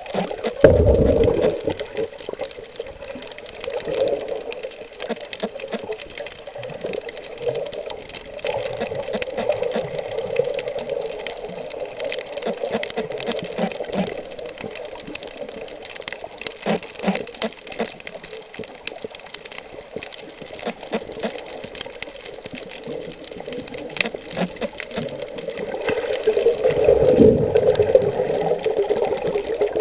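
Underwater sound: a muffled, steady rushing with scattered clicks and crackles, swelling louder near the end.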